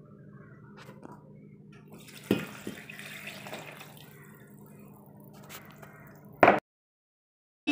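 Milk being poured from a glass into a stainless steel blender jar over broken Oreo biscuits, splashing for about two seconds after a knock about two seconds in. A sharp knock near the end, then the sound cuts out completely.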